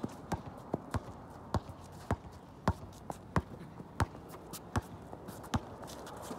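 A basketball being dribbled on a hard outdoor court: a string of sharp single bounces, roughly one every two-thirds of a second.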